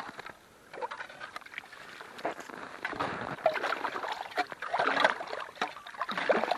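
A shovel scooping and scraping wet slush, ice chips and reed stubble out of a hole cut through marsh ice, in irregular crunching strokes that grow busier and louder in the second half.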